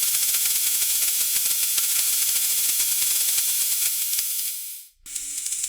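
Food sizzling in a frying pan: a steady, crackling hiss that fades out about four and a half seconds in, then a fresh, quieter sizzle starts near the end.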